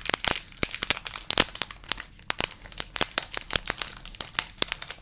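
Plastic trading-card pack wrapper being torn open by hand, crinkling and crackling in a rapid, irregular run of sharp crackles.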